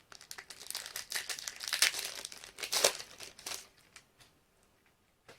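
A plastic trading-card pack wrapper crinkling and tearing as it is opened, a rapid crackle lasting about four seconds that dies away near the end.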